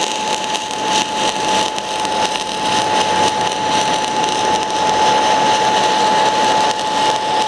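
MIG/MAG welding arc from a 500-amp semiautomatic welder running a steady bead on thick steel at high current: an even crackling hiss, with a thin steady whine underneath.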